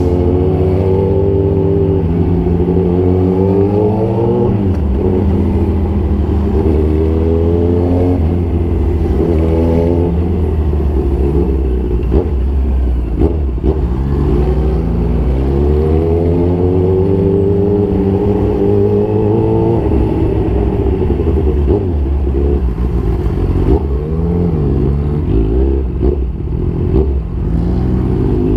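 Motorcycle engine running loud at low road speed. Its pitch rises and falls several times as the throttle is opened and closed.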